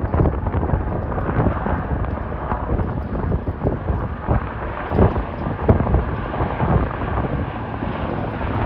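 Gusty wind buffeting the microphone over the low, steady rumble of distant jet airliner engines as regional jets taxi for takeoff.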